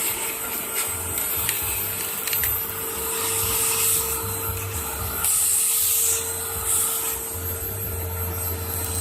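Household vacuum cleaner running with a steady whine and rushing suction. The rush gets louder for about a second midway.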